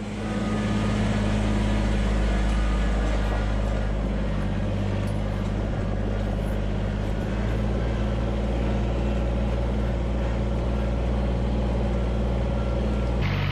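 Kubota tractor's diesel engine running steadily, getting louder in the first second as it picks up speed.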